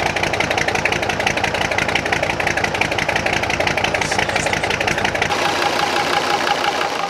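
Marinised Gardner 5LW five-cylinder diesel engine running cold, heard at the outlet of its flexible exhaust hose: a steady, even beat of exhaust pulses.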